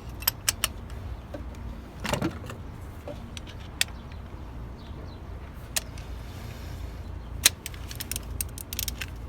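Scattered light clicks and clinks of metal tools and parts being handled, a dozen or so irregular taps, over a steady low background rumble.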